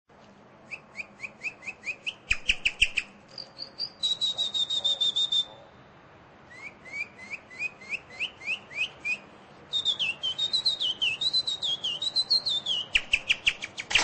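Nightingale singing in separate phrases: quick runs of repeated rising notes, fast trills and a held warbling note, with short pauses between the phrases.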